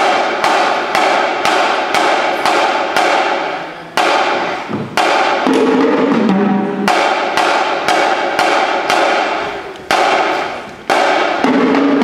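Marching drumline of snare, tenor and bass drums playing a cadence: hard, evenly spaced drum strokes a little over two a second. Twice a falling run of lower drum notes sounds.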